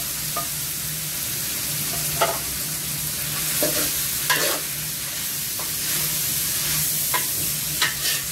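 Cubed pork belly sizzling in hot oil with sautéed onions in a large aluminium stockpot, stirred with a spoon that knocks against the pot now and then. A steady low hum runs underneath.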